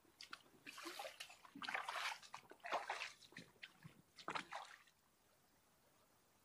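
Shallow river water splashing in a quick irregular series of splashes and sloshes, stopping about five seconds in.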